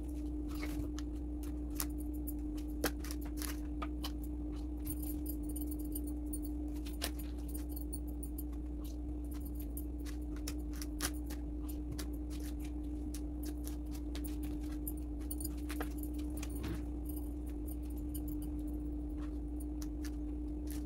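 Metal bangles on a wrist clinking and jingling in short, scattered clicks as frosting is spread over a cake with a spatula, over a steady low hum.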